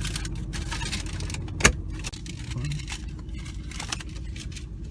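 Low rumble of a car cabin, with light rattling and rustling and one sharp click about a second and a half in.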